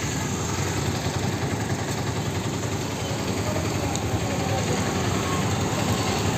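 Steady street traffic noise from motor scooters, motorcycles and auto-rickshaws running on a busy road.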